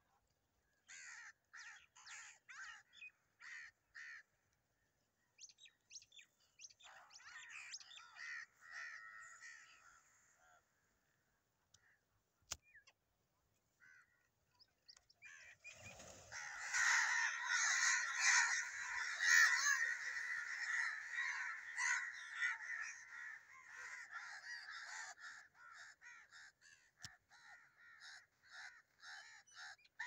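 A flock of crows cawing: scattered short caws at first, then from about sixteen seconds in a dense, loud chorus of many overlapping caws as the flock takes to the air. The chorus thins to repeated single caws near the end.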